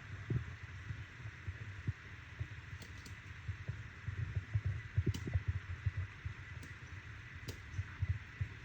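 Large pot of chicken and dumplings boiling, the thick broth bubbling in irregular low pops over a steady background hiss.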